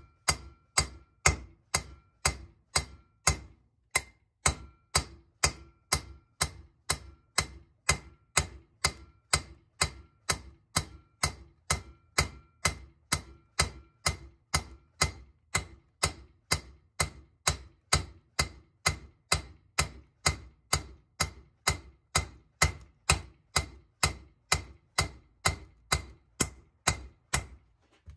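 Hammer taps on a valve guide driver, driving a valve guide into a Harley flathead engine part: a long, steady run of evenly spaced metal-on-metal taps, a little under two a second, each with a short ring.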